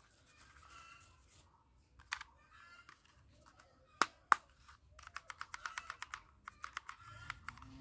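Plastic toy pistol clicking as its mechanism is worked by hand: two sharp clicks about four seconds in, then a quick run of lighter clicks lasting about two seconds.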